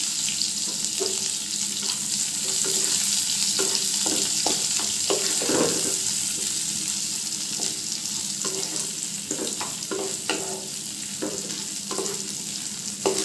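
Sliced onions, green chillies and dried red chillies sizzling in hot oil in a non-stick pan, with a steady hiss. A wooden spatula stirring them makes short, irregular scrapes and taps against the pan.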